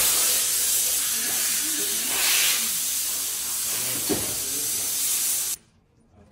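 A loud, steady hiss of rushing air or spray that cuts off sharply about a second before the end, with a small knock about four seconds in.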